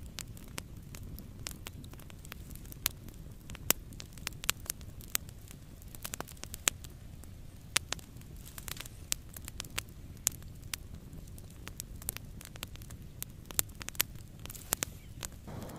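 Wood campfire crackling, with irregular sharp pops and snaps over a low steady noise.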